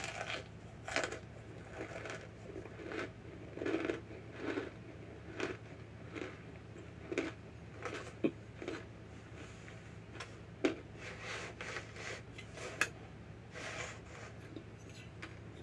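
Close-up chewing of a mouthful of cornstarch: an irregular run of short crunches, about one or two a second, with a few sharper clicks, over a steady low hum.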